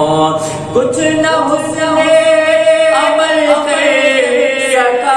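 A man singing an Urdu naat solo into a microphone, drawing out long sliding notes on a wordless melisma, with one long note gently falling in pitch through the middle.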